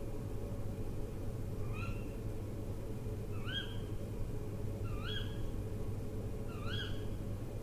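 An owl calling: a short note that rises and then levels off, repeated four times about a second and a half apart, starting a little under two seconds in. A steady low rumble runs underneath.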